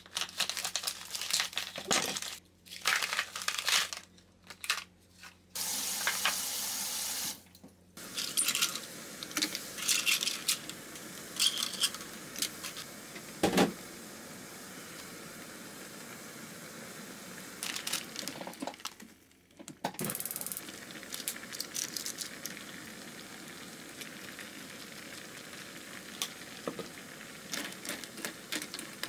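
Kitchen work at the counter: a tap runs briefly, among sharp clinks and clatters of dishes and utensils. A steady hiss continues under occasional clinks from about halfway.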